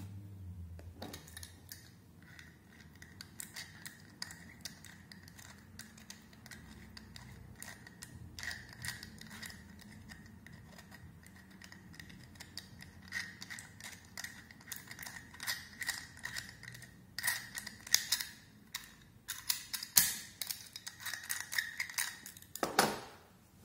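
A Master Lock dial combination padlock being worked by hand to pick it by feel: rapid metallic clicks and scraping as the dial is turned and the shackle pressed. The clicks grow denser and louder in the second half, with a louder rattle near the end.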